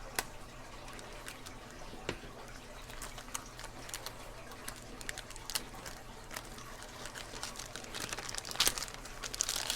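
Light clicks and rustling as a new lock-pick set's packaging is opened and handled, with a louder burst of rustling near the end.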